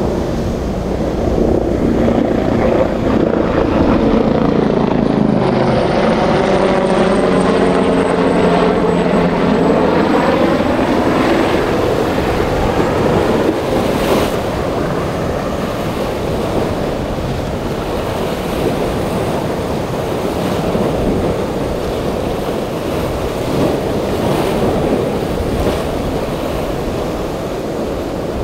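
A passing engine drone over the wash of surf and wind, holding several steady pitches for a few seconds in the first half and then sliding down in pitch as it fades. After that, rough water and wind noise remain, with one sharp click about halfway.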